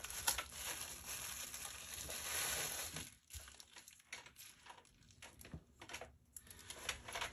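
Plastic bubble wrap crinkling as a watch is unwrapped from it, for about three seconds. It then turns quieter, with a few light clicks and taps as the watch and its strap are handled.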